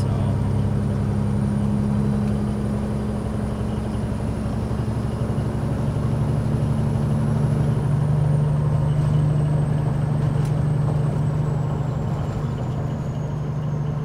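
A Peterbilt 389's Caterpillar 6NZ inline-six diesel runs steadily at highway cruise with an empty trailer, heard inside the cab over road noise. About halfway through the engine note shifts lower, and a faint high whine drops slightly in pitch.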